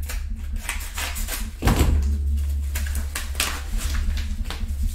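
Padded mail envelopes and plastic card holders being handled on a table: repeated rustling and crinkling, with a dull thump a little under two seconds in, over a steady low hum.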